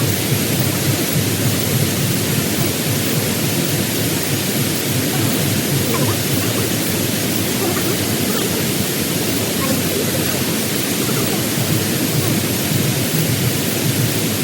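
Steady, loud rushing noise with no breaks or distinct strikes.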